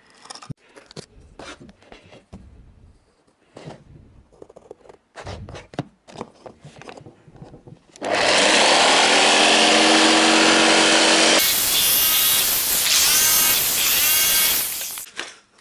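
A few light knocks and handling clicks, then about eight seconds in a Makita electric jigsaw starts and runs for about seven seconds, sawing through a wooden board. Its motor pitch wavers as the blade cuts, and it stops just before the end.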